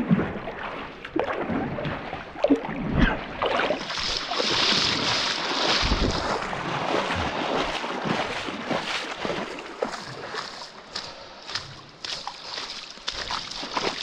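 Water sloshing and splashing as people wade or swim through a canyon pool, with many small irregular splashes over a steady rush of water.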